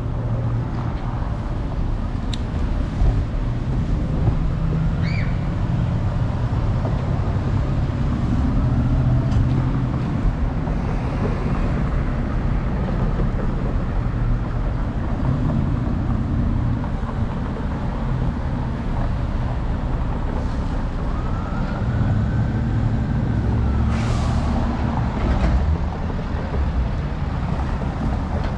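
Steady traffic at a busy city intersection: a continuous low rumble of passing cars and buses. A faint rising-and-falling tone comes through about three-quarters of the way in.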